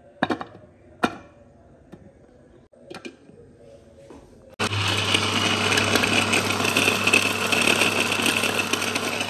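A few light knocks, then about halfway in an electric mini chopper's motor starts and runs with a steady whir, its blades chopping ginger and green chilli into a paste.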